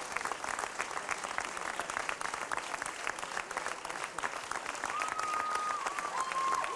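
Audience and performers applauding: a dense, steady patter of many hands clapping. About five seconds in, a held high note, such as a whistle or a sustained voice, rises above the clapping.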